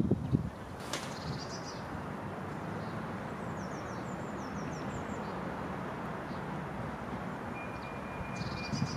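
City-park ambience: a steady hum of distant traffic, with a few short high bird chirps in the first half. Near the end a thin, steady high tone begins.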